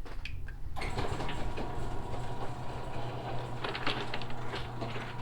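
Electric garage door opener running as the door travels down, starting about a second in: a steady mechanical drone with a low hum.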